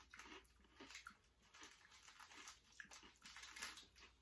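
Near silence with faint, scattered crackles and clicks: a snack wrapper being handled and a crispy sandwich cookie being chewed.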